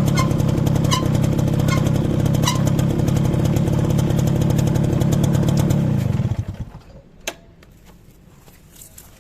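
Motorcycle engine running while the rear drum brake gives a short squeak about once every 0.8 seconds, once per wheel turn, for the first few seconds: a squeal that started after new brake shoes were fitted. About six seconds in the engine is switched off and dies away, followed by a single click.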